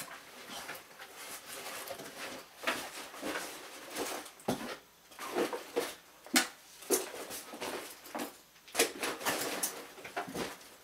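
A fabric backpack being handled and packed: irregular rustling and swishing of the bag, with several sharp clicks and knocks against the desk.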